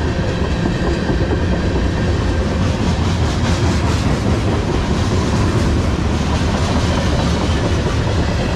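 Freight cars (tank cars and covered hoppers) rolling past close by. Their steel wheels and trucks make a steady, fairly loud noise on the rails.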